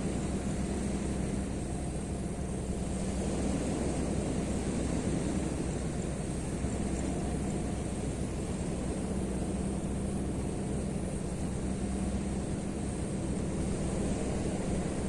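A steady engine drone with a constant low hum, holding even throughout.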